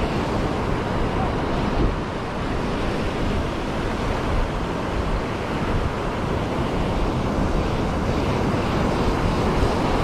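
Ocean surf breaking and foamy wash running up the sand in the shallows, steady throughout, with wind buffeting the microphone.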